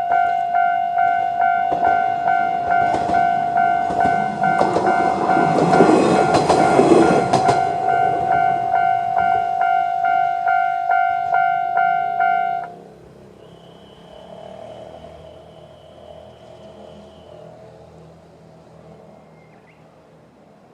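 Japanese level-crossing electronic warning bell ringing in its standard tone at a fast tempo, about one and a half strikes a second, while a Kiha 5020-series diesel railcar rumbles and clatters across the crossing near the middle. The bell cuts off suddenly a little past the halfway point, leaving only faint low hum.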